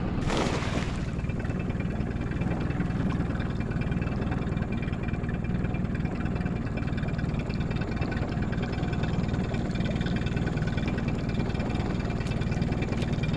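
Boat motor idling steadily, the boat creeping along at idle speed. A short rush of noise sounds in the first second.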